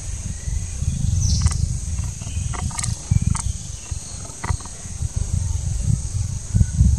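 Open-air ambience: a steady, uneven low rumble under a continuous high hiss, with a few short chirps and clicks and one brief falling whistle about a second in.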